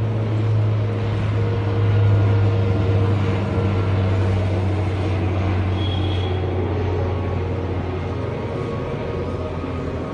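An engine's steady low hum, swelling about two seconds in and slowly easing off.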